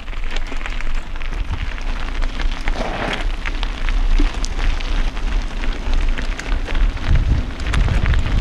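Mountain bike tyres rolling over a loose gravel trail: a dense crackle of small stones with rattling from the bike, over a low rumble of wind on the microphone that grows stronger near the end.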